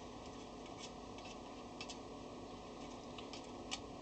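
Faint, irregular small metallic clicks and ticks of a hand tool working the small nuts off the terminal bolts of an electric fire's bulb-holder plate.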